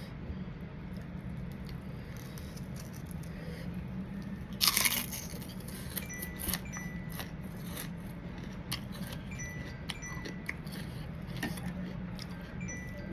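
Eating sounds: one loud, short crunch about five seconds in, then scattered small clicks, over a steady low hum. A few short, high chime pings ring out now and then in the latter half.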